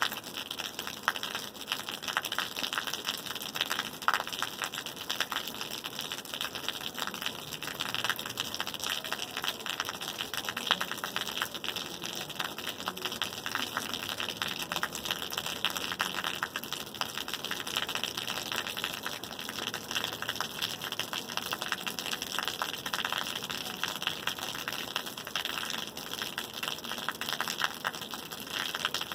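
Steady rain falling, a dense even hiss made of many small drop hits.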